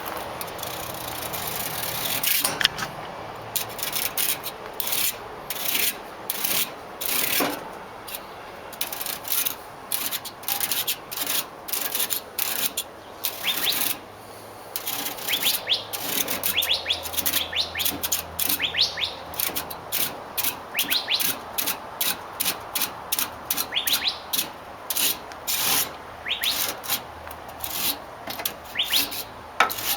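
A piece of plastic comb scraped repeatedly through an air-conditioner condenser's cooling fins to straighten them: a steady run of short rasping strokes, one or two a second, many with a quick rising zip as the teeth run along the fins.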